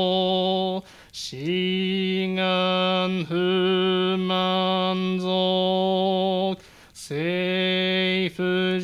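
A male Buddhist priest chanting a sutra in long drawn-out syllables on one steady, unchanging pitch. He pauses for breath about a second in and again near seven seconds, each new phrase sliding up into the note.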